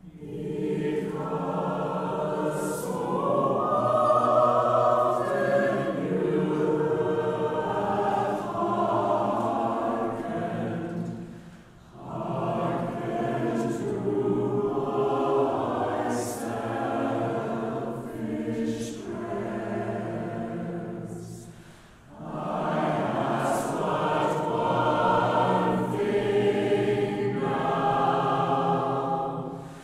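Mixed choir of men's and women's voices singing in harmony in long sustained phrases, breaking briefly twice, about twelve and twenty-two seconds in, with their 's' sounds hissing together at phrase ends.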